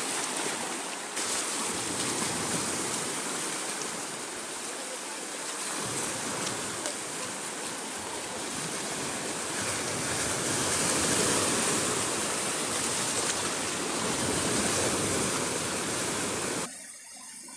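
Steady rushing of shallow seawater at the shoreline, cutting off suddenly near the end.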